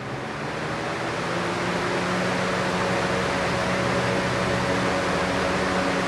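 Electric box fan switching on and spinning up to speed, then blowing steadily: an even rush of air with a low hum, growing louder over the first second and a half. It is the circulation fan blowing air into the open reflow oven to cool it after the heating stage.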